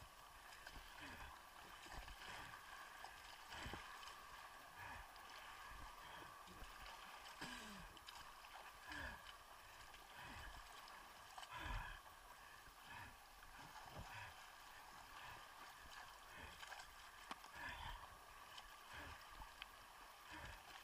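Faint sea water sloshing and gurgling at the waterline as someone paddles by hand, with frequent soft, irregular thumps of water against the camera.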